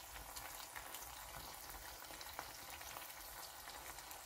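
Eggs frying in oil in a stainless steel pan: a faint, steady sizzle scattered with small crackles and pops.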